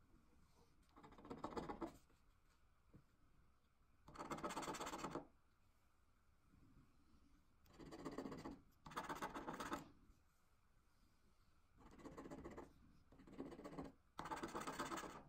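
A round plastic scratcher scraping the coating off a Swisslos Bingo Lotto scratch card. It comes in about seven separate scratching bursts, each lasting about half a second to a second, with short pauses between them.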